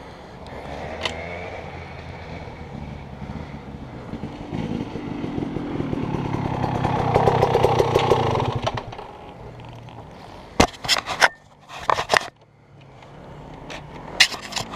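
KTM off-road dirt bike engine running, then revving up to its loudest about seven or eight seconds in before dropping back off. A few sharp knocks and clatters follow near the end.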